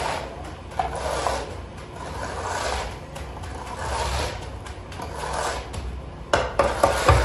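Repeated rubbing strokes of a hand tool across fresh, stiff concrete, one stroke about every one and a half seconds as the surface is worked. Near the end come a few sharp knocks and a low thump.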